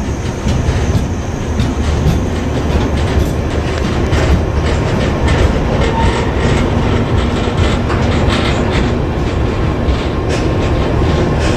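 Loaded ballast wagons of an engineering freight train rolling past, wheels clacking over the rail joints in an uneven run of knocks.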